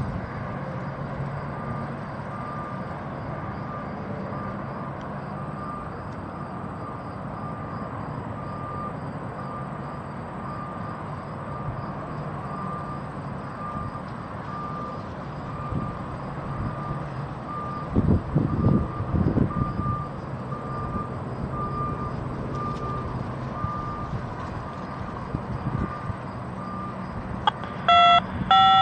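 Distant vehicle reversing alarm beeping steadily, about once a second, over a low steady hum of far-off traffic and engines. A gust of wind thumps the microphone partway through, and two short toots sound near the end.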